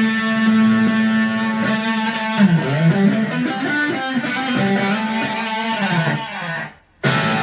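Harley Benton Red Special copy electric guitar played through an amplifier: a note held for about two seconds, then a run of moving notes with bends. The playing stops briefly near the end, then starts again.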